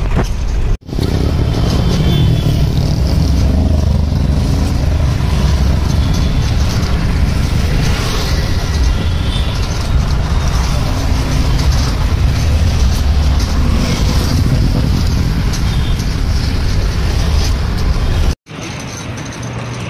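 Busy road traffic around an open horse-drawn carriage: a steady mix of car and motorbike engines and tyre noise with a heavy low rumble. It drops out briefly twice, about a second in and near the end.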